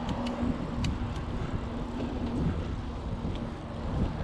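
Wind buffeting the microphone and a steady low rumble of road noise while riding a mountain bike along a paved road.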